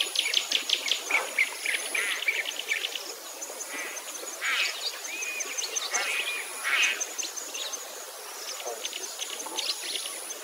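Wild birds chirping and singing outdoors, several short calls and trills overlapping throughout.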